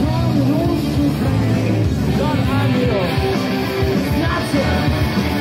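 Live rock band playing loudly, with electric guitar to the fore.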